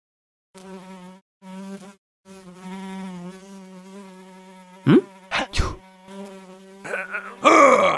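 Housefly buzzing: a steady, even drone that breaks off twice in the first two seconds and then runs on unbroken. About five seconds in, a few quick sweeps rise and fall over the buzz, and a louder short burst with bending pitch comes near the end.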